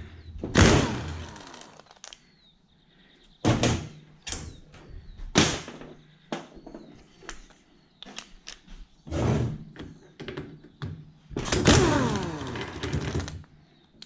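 Pneumatic impact wrench (rattle gun) run in reverse in several short bursts, each dying away in a falling whine, as it undoes the threaded inserts of a 1UZ-FE hydraulic fan pump. Metal clicks of the socket and parts on the steel bench come between the bursts.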